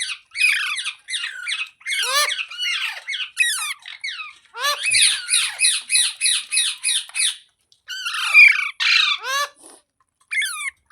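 Rose-ringed (ringneck) parakeet squawking: harsh screeching calls in quick bursts, with a fast even run of about ten calls at roughly four a second from about five seconds in.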